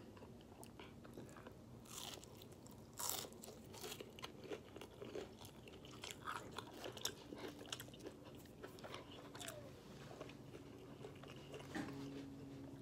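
A person chewing and biting into a crispy fried hash brown, with faint, irregular crunches; the loudest crunch comes about three seconds in.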